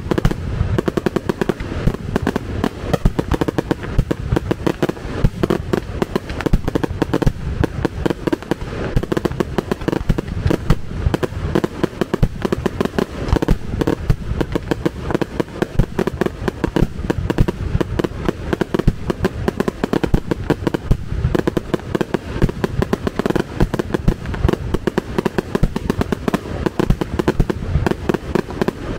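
Fireworks display: a dense, continuous barrage of rapid bangs, many a second, with no let-up.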